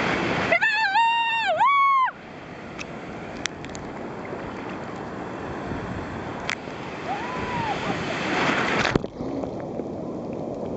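Breaking surf rushing and churning around a waterproof camera held in the waves. A person's loud, high-pitched squeal runs from about half a second to two seconds in.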